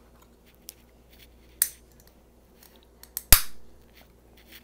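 Grape soda being opened: a few small clicks, then a sharp crack a little over three seconds in followed by a short fizz that dies away.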